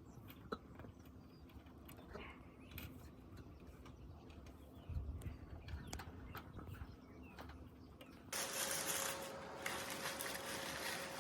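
Scattered light knocks and clicks of handling work, then about eight seconds in a motor starts suddenly and runs with a steady hum and a loud hiss.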